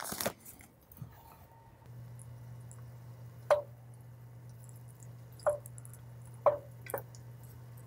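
Four short knocks of a utensil against an enamelled cast-iron Dutch oven, each with a brief ring, over a steady low hum that starts about two seconds in.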